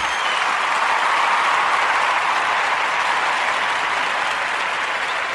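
Applause: a steady wash of many hands clapping, holding at an even level throughout.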